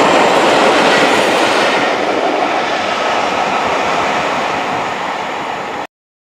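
A passing train, its wheels clattering along the rails in a dense rumble. The sound eases slightly, then cuts off suddenly near the end.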